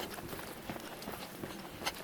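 A hiker's footsteps on a mountain trail going downhill: irregular steps with a few sharper clicks.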